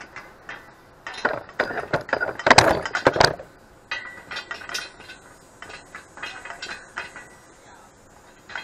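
Hydraulic pipe bender being worked to bend steel electrical conduit: metallic clicking and clinking, a dense run for a couple of seconds about a second in, then sparser clicks.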